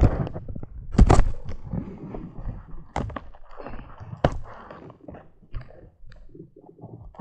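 A cardboard shipping box being handled and opened close to the microphone: irregular rustling and scraping with several sharp knocks, the loudest about a second in.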